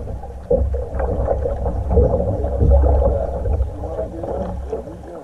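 Paddle strokes splashing and water gurgling around a plastic kayak, under a heavy, continuous low rumble on the bow-mounted camera's microphone.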